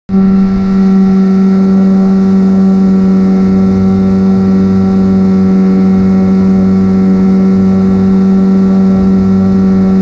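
Outboard motor pushing a small aluminium fishing boat, running at a steady speed with an unchanging pitch.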